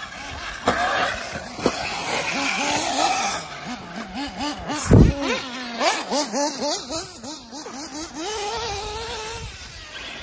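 Radio-controlled off-road buggies racing, their motors rising and falling in pitch many times as the throttle is worked, with a heavy thump about five seconds in.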